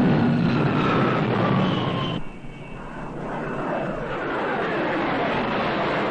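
Jet aircraft engines passing low on landing approach. A whine falls in pitch as the first jet goes by and breaks off abruptly about two seconds in, then another jet's noise builds up again.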